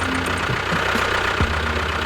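A small motor running steadily with a hum, with a few short knocks, the loudest about one and a half seconds in.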